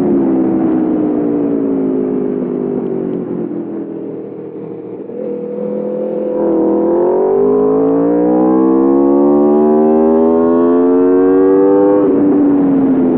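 2021 Aprilia RSV4 Factory's V4 engine heard onboard: the revs fall for about five seconds as the level drops, then climb steadily for about six seconds under hard acceleration before dropping sharply at a gear change near the end.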